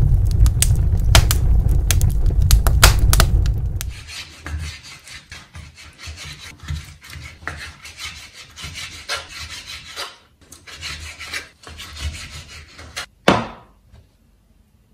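Kitchen knife cutting raw turkey meat on a wooden cutting board: repeated scraping, sawing strokes of the blade through the meat against the wood. A loud low rumble with sharp clicks comes first, and a short loud sound sweeping down in pitch comes near the end.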